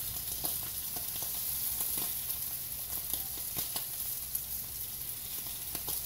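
Sockeye salmon fillet frying in oil in a skillet, a steady sizzling hiss with frequent small crackles and pops.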